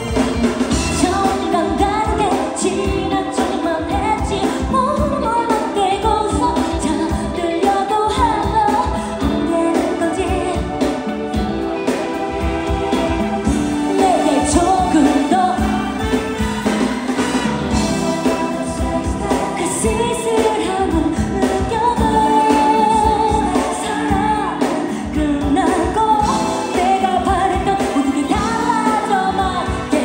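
A woman singing a pop song live into a microphone, backed by a band over a steady beat.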